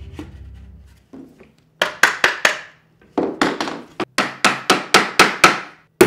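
Background music fades out in the first second. Then a hammer strikes a wooden frame in quick runs of sharp blows, about three a second, knocking its corner joints together.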